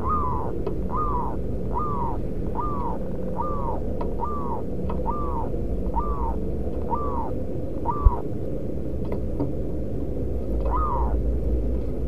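Zebra dove calling: a run of short arching notes, about one a second, that stops about eight seconds in, with one more note near the end. A sharp knock about eight seconds in, over a steady low rumble.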